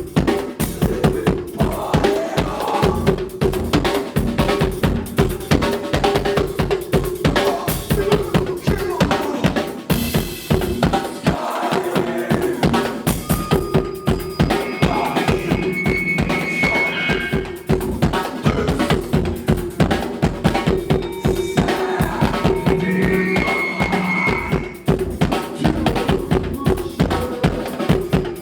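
A live rock band playing, led by fast, dense drum-kit hits with kick and snare. A steady held note runs underneath, and short high-pitched tones cut in twice near the middle and later on.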